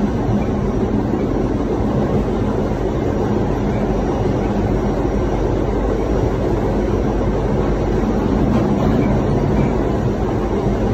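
New York City subway car running along the track, heard from inside the car: a steady, even noise with no let-up.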